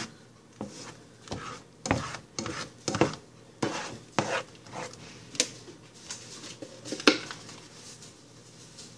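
Spatula scraping and knocking against a frying pan while scrambling eggs, in irregular strokes about every half second. The loudest knock comes about seven seconds in, after which it goes quieter.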